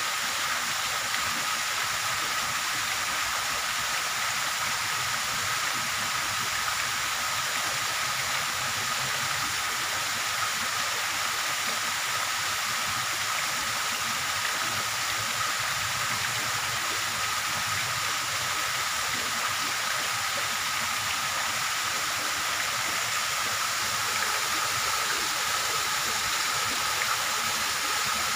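Steady, even hiss with a faint constant high tone running through it, unchanging throughout.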